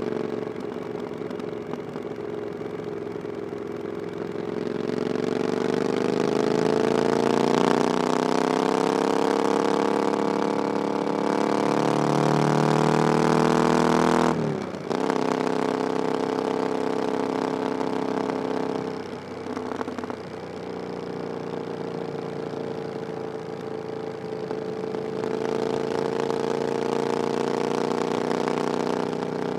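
Triumph Scrambler 900's parallel-twin engine through an aftermarket "VW pipes" exhaust, pulling under load with its pitch climbing steadily for several seconds. About halfway its pitch drops suddenly, then it runs at a steadier cruising pitch, with a brief dip a few seconds later and a slight rise near the end.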